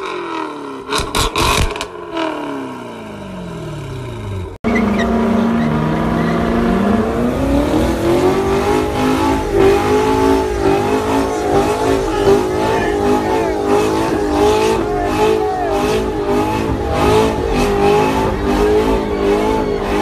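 Chevrolet Corvette V8 revved through a loud aftermarket exhaust, the revs falling away after each blip. About five seconds in, another Corvette V8 rises to high revs and holds there, wavering, while its rear tyres spin in a burnout.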